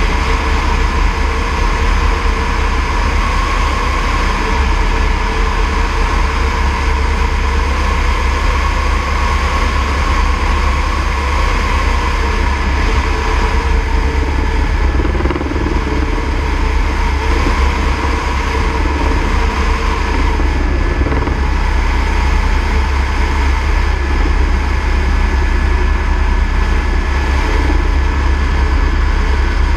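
Airbus AS350 B3e helicopter in flight, its single Turbomeca Arriel 2D turboshaft and rotor making a loud, steady noise with a deep rumble and a constant thin whine.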